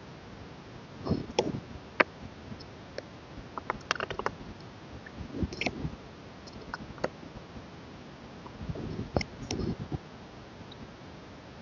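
Handling of a K-pop album package: light clicks and taps with short rustles of card and paper, coming in a few small clusters.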